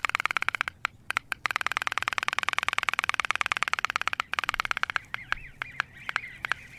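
Homemade pop-pop boat's candle-heated steam boiler running with a rapid, even putting. It breaks off briefly twice and falls to a few scattered pops near the end.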